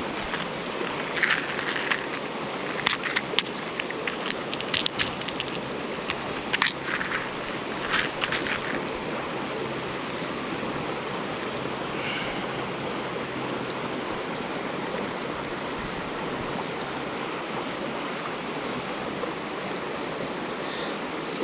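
Mountain stream water rushing steadily, with a scatter of small sharp clicks and knocks over the first nine seconds or so and a couple more near the end.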